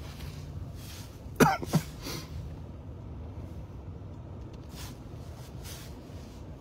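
Low steady rumble inside a vehicle's cab while driving, broken about a second and a half in by two quick coughs, the first the louder.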